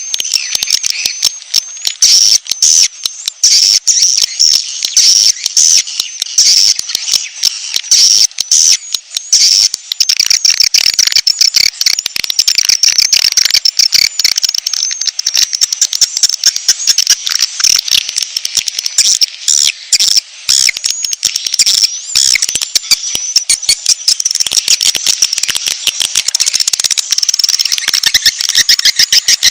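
Bird-trapping lure recording (suara pikat): a loud, dense, unbroken high-pitched chattering and trilling, full of rapid ticking clicks.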